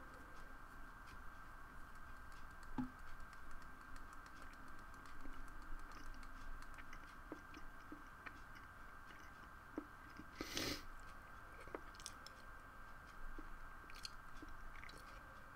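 Faint, scattered small clicks and crunchy taps over a steady electrical hum, with one louder crackling rustle about ten and a half seconds in.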